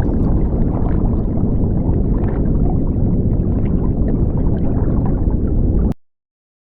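Muffled low rumble of water as heard through an underwater camera housing, with faint scattered clicks; it cuts off abruptly near the end.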